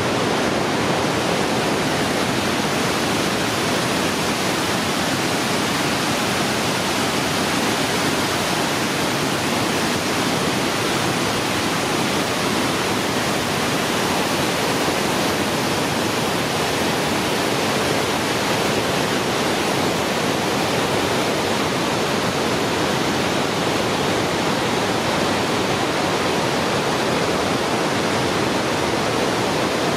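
Creek rapids and a waterfall in the canyon below, rushing steadily.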